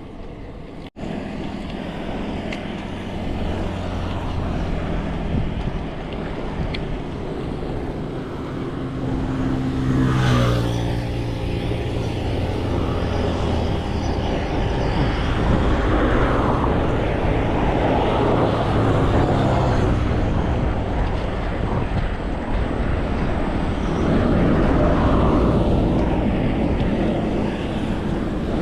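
Wind and road noise on an action camera during a bicycle ride. About ten seconds in, a motor vehicle passes, its engine note falling as it goes by, and further traffic swells in later.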